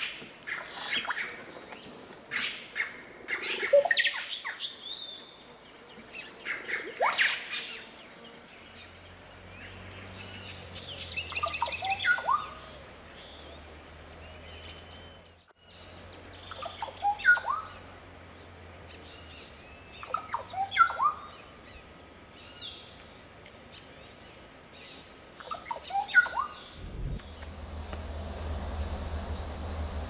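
Caciques calling: loud, liquid phrases that slide downward in pitch, repeated every four or five seconds.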